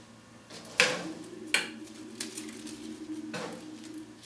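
Scissors snipping through houseplant leaves: two sharp snips about a second apart near the start and a softer one near the end.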